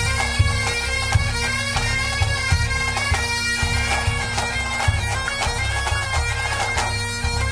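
Bagpipe music: steady drones under a shifting melody, with a regular drum beat underneath.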